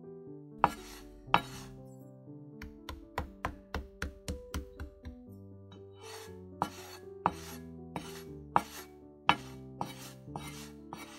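Kitchen knife blade knocking and scraping against a plastic cutting board as a floured curd-cheese patty is shaped, several sharp strokes, the loudest in pairs. Gentle piano music plays underneath.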